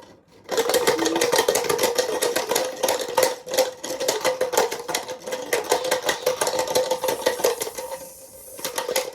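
Small washing machine running its drum: a steady motor whine under a fast, loud rattling clatter, which eases off briefly near the end.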